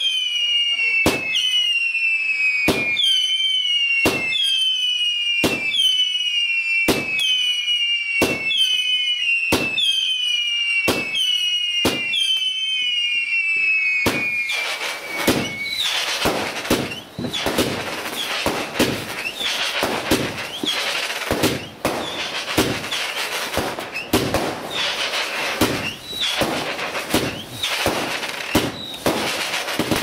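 Multi-shot firework barrage firing in a steady rhythm, each shot a bang followed by a falling whistle. About halfway through, the whistles give way to dense crackling, with more bangs scattered through it.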